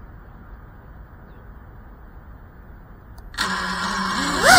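Cinewhoop FPV drone's brushless motors and ducted propellers. After faint background hiss, the motors arm a little over three seconds in and spin at a steady idle. Near the end they throttle up into a rising whine for takeoff.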